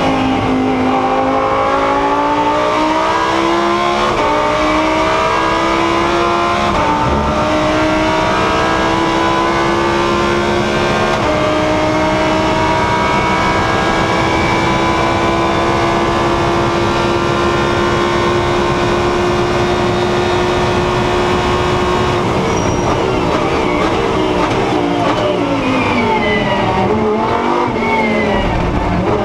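Lamborghini Huracán Super Trofeo race car's V10 engine heard from inside the cockpit, accelerating hard with three upshifts in the first eleven seconds. It then holds steady at high revs for about ten seconds before dropping through a run of downshifts with throttle blips near the end.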